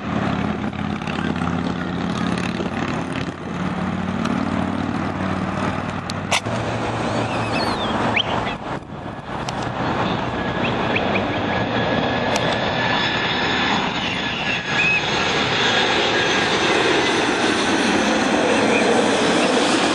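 Jet airliners on final approach passing low overhead, a steady loud rush of engine noise. Over the second half a high engine whine sounds clearly and grows a little louder toward the end, and there is a brief dip in level about nine seconds in.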